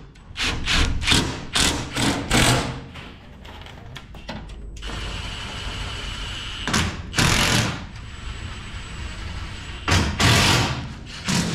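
Cordless drills running in short bursts as they fasten the body panels of a dirt late model race car, with a steadier whir in the middle stretch.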